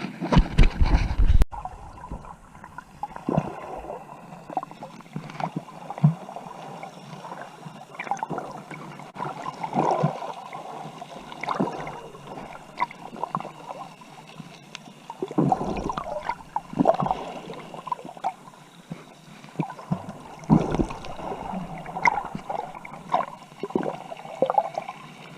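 Water gurgling and splashing in irregular bursts, with a louder, rumbling burst in the first second or so.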